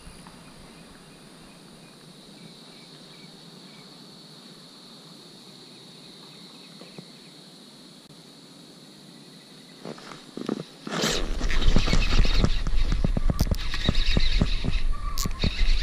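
Faint outdoor ambience with a steady high hum for about ten seconds, then from about eleven seconds in loud rumbling and crackling: wind buffeting and handling noise on the camera's microphone as the rod and reel are moved.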